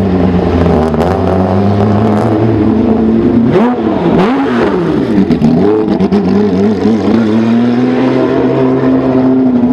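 Rally car engine idling, blipped a couple of times about three and a half seconds in: the pitch jumps up and drops back before settling to a steady idle again.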